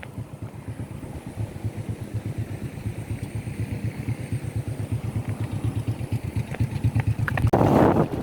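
A motor engine running steadily with an even low throb. A brief, louder rush of noise comes near the end.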